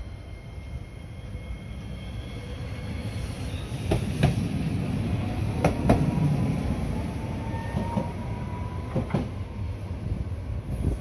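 Chikuho Electric Railway tram car 5001 running past at close range. A thin motor whine climbs steadily in pitch through the middle, and the wheels give several sharp clacks over rail joints.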